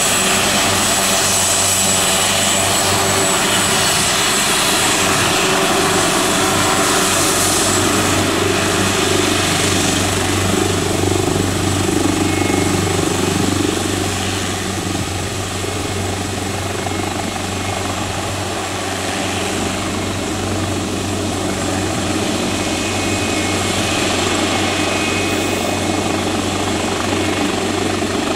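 Leonardo AW139 helicopter's twin turboshaft engines and rotors running steadily as it taxis on the ground, with a steady high turbine whine over the rotor noise. The level dips a little about halfway through, then comes back up.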